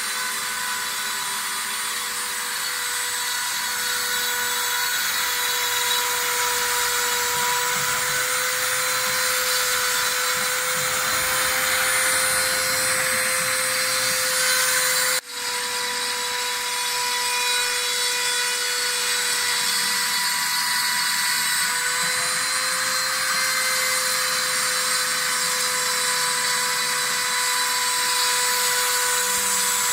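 CNC router spindle running at a steady high speed with a constant whine, cutting EPP foam. The sound breaks off for an instant about halfway through.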